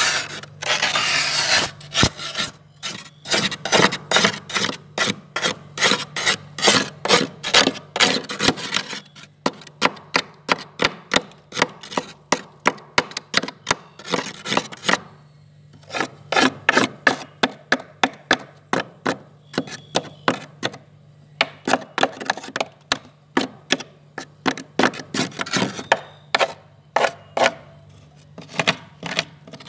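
Frost being scraped off the inside walls of a freezer with a hand-held tool, in quick short rasping strokes, about two or three a second. It starts with a longer continuous scrape and pauses briefly twice. A low steady hum runs underneath.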